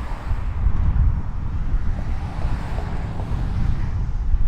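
Wind buffeting the microphone in a low, uneven rumble, over the running of heavy demolition machinery.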